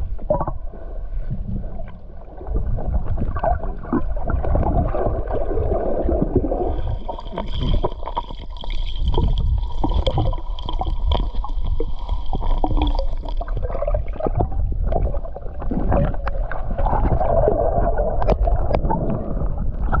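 Muffled underwater sea noise heard through a submerged camera: a low, continuous rumble and gurgling of water against the housing, with many small knocks and clicks.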